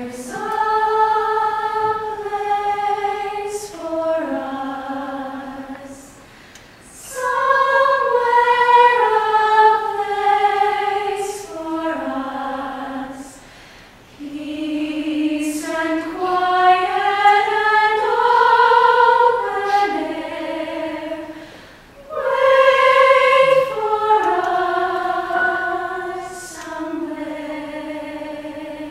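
Mixed choir of young women and men singing slow phrases of long held notes, with brief breaks between phrases about every seven or eight seconds.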